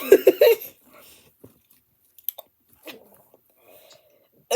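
A short, loud, rattling belch at the very start, then a few faint clicks and small mouth sounds.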